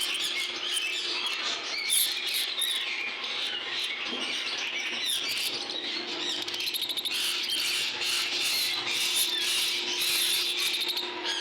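Many caged lovebirds chattering and chirping together in a dense, continuous clamour of overlapping high calls.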